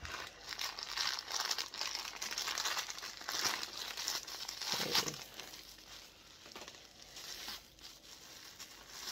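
Plastic packaging crinkling as a vinyl figure is unwrapped from its black plastic bag and bubble-wrap sleeve. It is louder for the first five seconds or so, then fainter.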